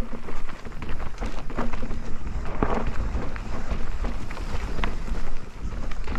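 Mountain bike riding over a rough trail: wind buffeting the microphone, with many irregular clicks and knocks from the tyres and the bike rattling over the ground.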